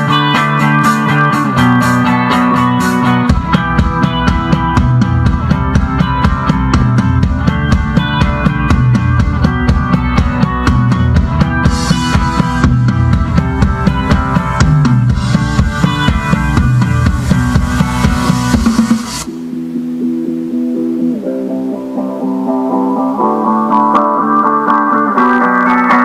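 Guitar-led music with bass and drums playing from a car stereo inside the car's cabin. About three-quarters of the way through, the drums and bass stop and the guitar carries on alone.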